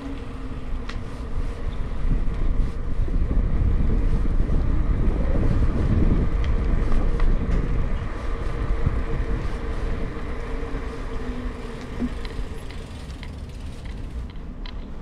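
Street noise heard from a moving bicycle: a low rumble builds about two seconds in, stays loud for several seconds and then fades, over a steady faint hum, with a few light clicks.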